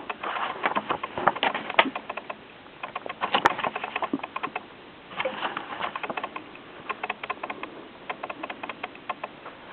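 Pages of a softcover book being handled and flipped: clusters of quick papery clicks and crackles with short pauses in between.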